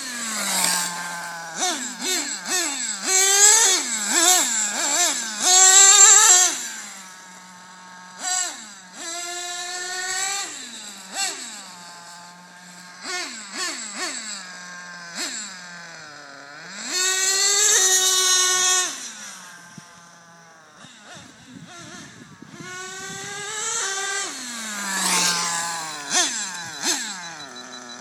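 HPI Super Nitro RS4 RC car's small RB C5 nitro engine revving up and down over and over as the car is driven, a high whine that rises and falls in pitch with the throttle and drops back to a low idle between bursts.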